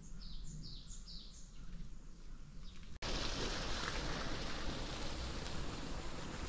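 A bird calling with a run of quick, high, falling chirps. About three seconds in this gives way abruptly to a louder, steady rushing noise.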